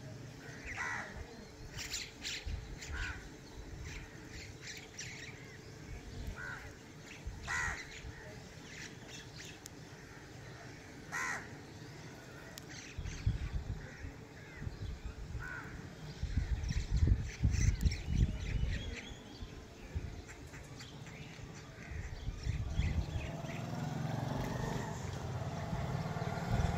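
Crows cawing now and then, a dozen or so short separate calls spread through the scene. Low buffeting rumbles on the microphone, loudest about two-thirds of the way in.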